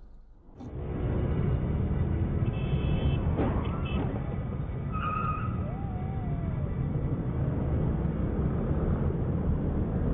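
Steady road and engine rumble of a moving car recorded by a dashcam, starting abruptly about half a second in, with a few faint passing tones.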